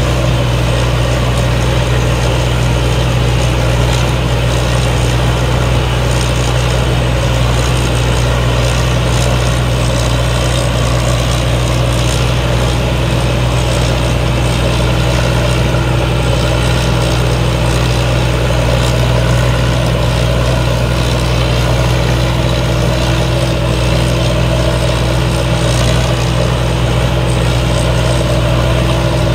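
T. Charoen Kanchang rice combine harvester running steadily while it cuts a standing rice crop: a constant loud engine drone with a deep hum and the noise of its working machinery, unchanging throughout.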